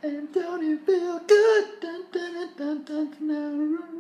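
A voice humming a wordless tune in a string of short held notes, with a louder, breathier note about a second in.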